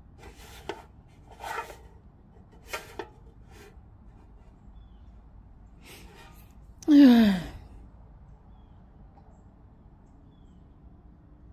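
A person's short, loud vocal outburst about seven seconds in, starting with a burst of breath and sliding down in pitch. Before it come a few brief noisy sounds.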